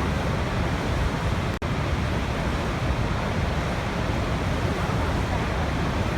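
Waterfall rushing steadily, a dense even roar of falling water, broken by a momentary dropout about one and a half seconds in.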